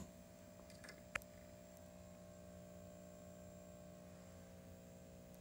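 Near silence: a faint steady electrical hum, with one small click a little over a second in.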